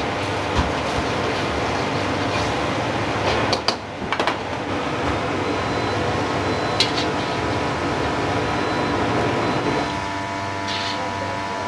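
Steady roar of a restaurant kitchen's wok burners and extractor fan, with a low hum underneath and a few short clanks of utensils.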